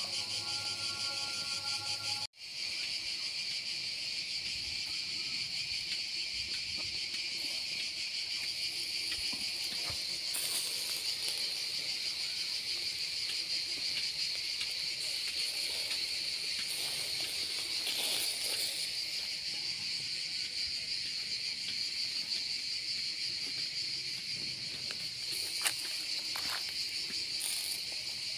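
Steady, high-pitched chorus of insects chirring without a break, with a brief dropout about two seconds in.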